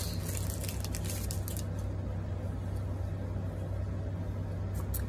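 Foil wrapper of a Pokémon card booster pack crinkling as it is torn open and the cards pulled out, busiest in the first second and a half, with a little more rustle near the end. A steady low hum runs underneath.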